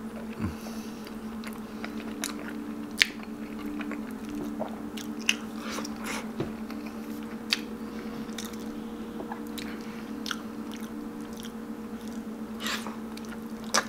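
Close-miked chewing and biting into tender, gelatinous stewed pork trotter (balbacua) eaten by hand, with irregular wet mouth clicks and smacks.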